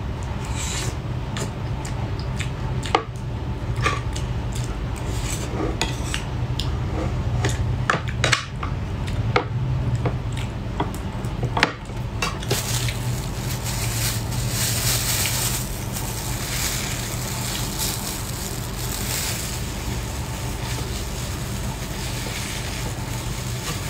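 Metal spoon clicking and scraping against rice on a bamboo plate, with eating noises. From about halfway there is a steady rustling, squishing sound as spicy crab meat is squeezed onto the rice with a plastic-gloved hand.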